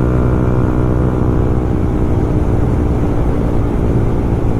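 Yamaha MT-15's 155 cc single-cylinder engine running through an Akrapovic full-system exhaust while riding, holding a fairly steady pitch.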